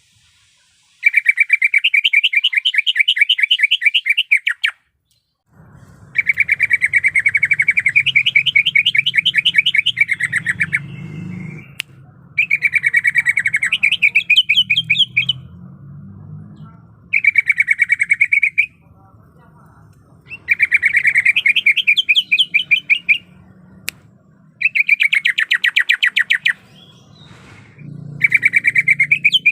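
Cucak ijo (green leafbird) singing in seven bursts of very fast, trilled repeated notes, each burst two to four seconds long with short gaps between. A low hum runs underneath from about five seconds in.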